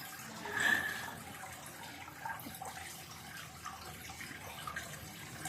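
Faint, steady running water, like a tap or hose left running, with a few light clicks. A brief high squeak comes about half a second in.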